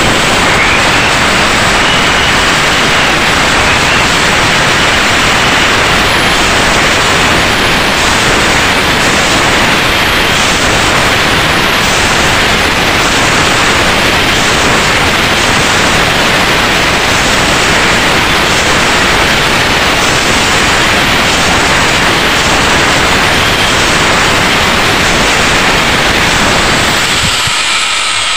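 Angle grinder cutting into the blades of an aluminium four-blade outboard propeller, running steadily at full speed and winding down near the end.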